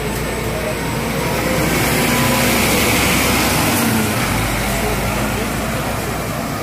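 Double-decker coach driving past close by and pulling away, its engine running under a steady rush of noise that grows louder in the middle and then eases.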